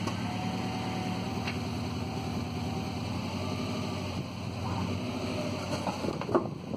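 Subaru WRX's turbocharged flat-four boxer engine idling steadily, with a short knock about six seconds in.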